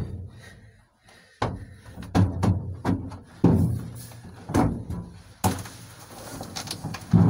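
Irregular hollow knocks and thumps, about ten of them, as things are handled and shifted about in a pickup truck bed under its canopy, with a rustle near the end.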